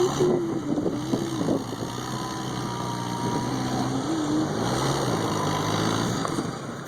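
A vehicle engine running, its pitch wavering up and down in the first second or so, then steadier.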